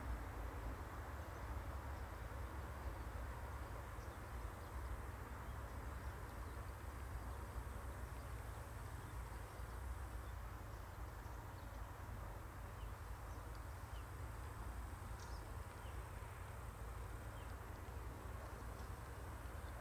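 Quiet trackside outdoor ambience: a steady low rumble and even background noise, with a few faint short high chirps scattered through it.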